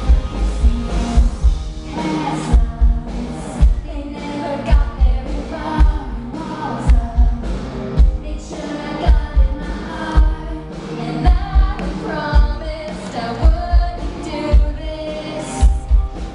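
Live pop song played through a concert PA: a sung lead vocal over band backing with a steady, heavy bass-drum beat, loud and boomy as heard from within the crowd.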